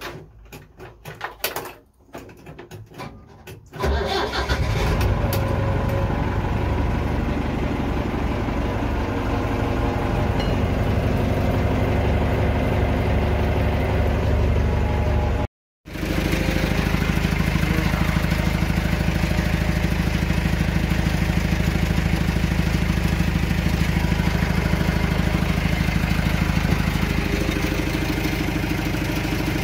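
Old JCB machine's engine starting about four seconds in, after a few clicks and knocks, then running steadily. The sound breaks off for a moment about halfway through and resumes with the engine still running.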